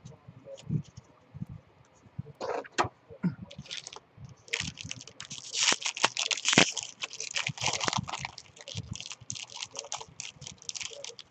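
A few light taps of a card stack set down, then from about four and a half seconds in a dense crinkling crackle as a Topps baseball card pack's foil wrapper is torn open and the cards are worked out of it.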